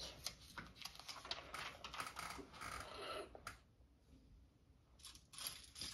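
Faint clicking and light rattling of small plastic Lego pieces being picked out of a loose pile and handled, with a brief lull a little past the middle.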